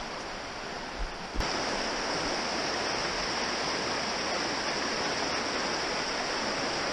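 Steady rush of a small stream running fast over a shallow, rocky riffle. A short click about a second and a half in, after which the water is louder.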